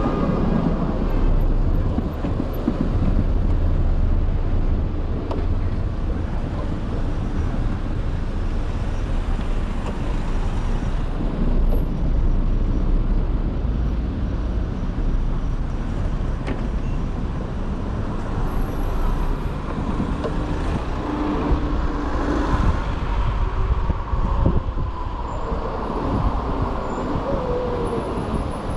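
Road and traffic noise heard from a moving electric moped in city streets: a steady low rumble of wind on the microphone mixed with the sound of surrounding cars and other vehicles.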